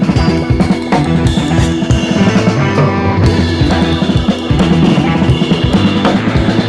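Background music with a steady drum beat under held instrumental notes.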